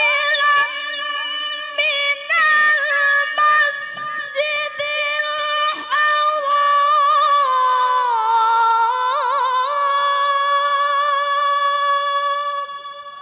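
A woman reciting the Qur'an in the melodic tilawah style into a microphone: one long, high phrase held on a sustained note with small ornamented turns. The pitch dips about eight seconds in, climbs back, and the phrase fades away near the end.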